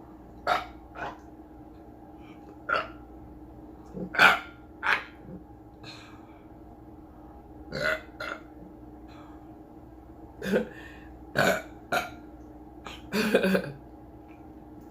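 A man burping repeatedly after drinking a bottle of carbonated Sprite: about a dozen short burps a second or two apart, with a quick run of them near the end.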